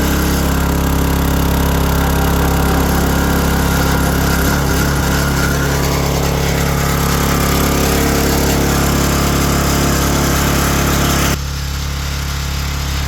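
6.5 HP Kohler single-cylinder engine on a log splitter running steadily, staying running with its oil pressure sensor wire unplugged to bypass the sensor. About three-quarters through the sound turns abruptly quieter and duller, while the engine's low steady tone keeps going.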